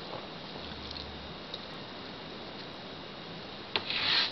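Quiet room tone with a steady low hiss, then a click and a brief rustling noise near the end.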